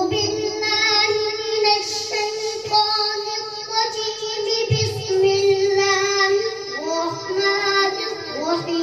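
A young boy reciting the Quran into a microphone in the melodic chanted style of tilawat. He holds long notes that waver and turn at the ends of phrases.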